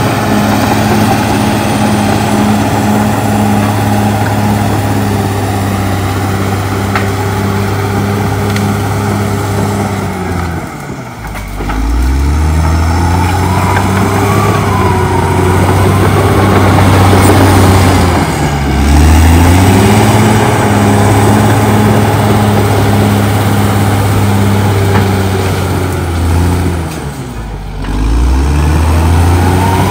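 Caterpillar D6R XL bulldozer's diesel engine running hard while the dozer works through brush. Its pitch and loudness sag and then climb back up three times.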